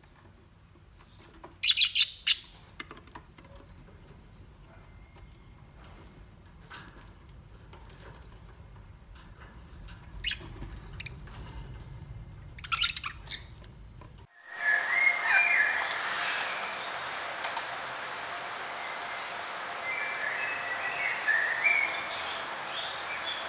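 Birds chirping: a few sharp, scattered chirps in the first half, then an abrupt change about fourteen seconds in to a dense chorus of many birds chirping at once.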